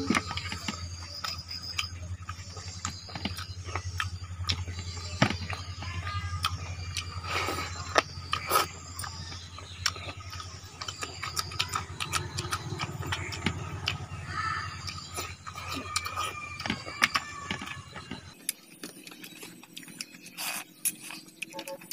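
Close-up eating sounds: chewing and mouth clicks, with fingers mixing and scraping rice and mutton curry on a steel plate. A steady low hum runs underneath and cuts off suddenly about eighteen seconds in.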